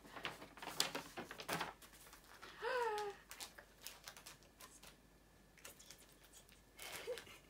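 Paper and plastic packaging rustling and crinkling as it is handled, with scattered small clicks, densest in the first couple of seconds. About three seconds in, a woman gives a short vocal sound that falls in pitch.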